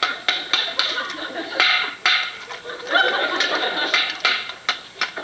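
Studio audience laughing in waves, with many short sharp clicks and rustles.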